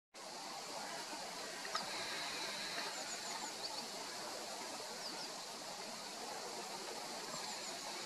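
Small songbirds giving brief, thin, high call notes, several times and some in quick runs of three or four, over a steady outdoor hiss.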